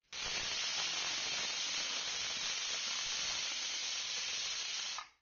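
Aluminium pressure cooker's weight valve venting steam with a steady hiss: the cooker has come up to pressure and is letting off a 'whistle'. The hiss starts and cuts off abruptly.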